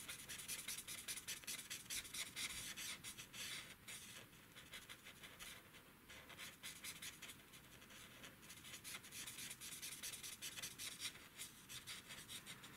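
Stampin' Blends alcohol marker tip scratching and rubbing on cardstock in many quick, short colouring strokes; faint, a little quieter in the middle.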